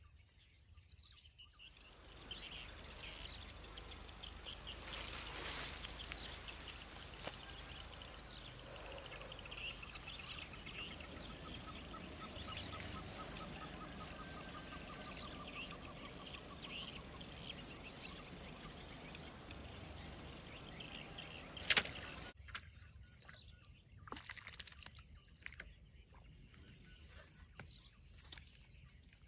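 Insects droning on one steady very high pitch, with birds chirping and a falling trilling call over it; after about twenty seconds it cuts off abruptly to much quieter surroundings with a few faint ticks.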